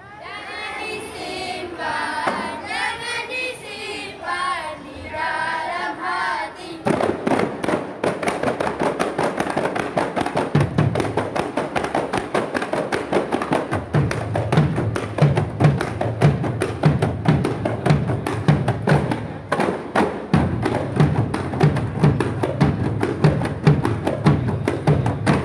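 Boys' voices chanting a verse unaccompanied, then a kompang ensemble of hand-struck frame drums comes in about seven seconds in with a fast, dense interlocking rhythm. A large double-headed barrel drum adds deep beats about twice a second from about halfway through.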